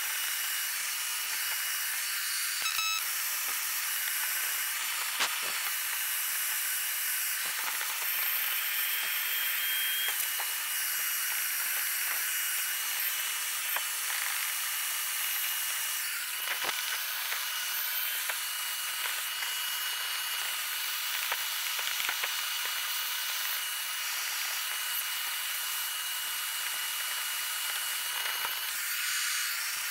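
Wet-and-dry shop vacuum running steadily with a thin high whine, its hose sucking mouse-nest debris out of the coil springs of an old bench seat base. Occasional light clicks come from a metal tool and the nozzle knocking against the springs.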